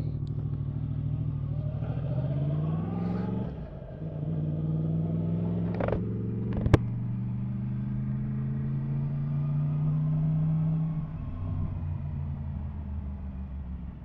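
Yamaha MT-10 SP's crossplane inline-four engine pulling away and accelerating, its pitch climbing over the first few seconds, with a brief dip at a gear change about three and a half seconds in. It then climbs slowly again until the throttle closes about eleven seconds in. A single sharp click is heard between six and seven seconds in.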